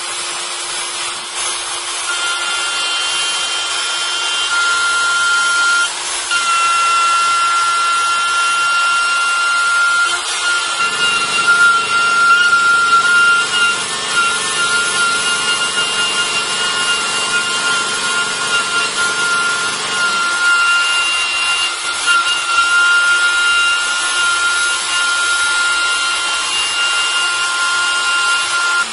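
Kress router spindle on a Stäubli TX60 robot arm running with a steady high whine while milling into a block, the cutter grinding through the material. A deeper rumble joins the cutting for about ten seconds in the middle.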